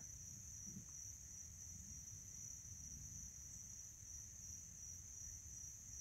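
Faint, steady chorus of crickets: a continuous high-pitched trill.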